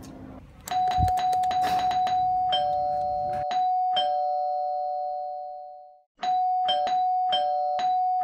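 Doorbell chime rung over and over: a string of quick strikes sets two ringing tones going, which fade away about six seconds in before a fresh run of strikes starts them again.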